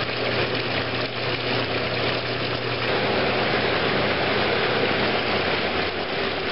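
Steady rush of water running and splashing into fish-hatchery tanks, over a steady low machinery hum.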